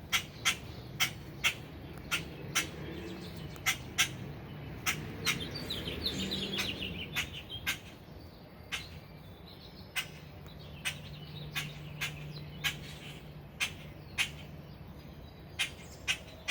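An adult songbird giving sharp, short calls over and over, about one or two a second: a parent's alarm calls over its grounded fledgling.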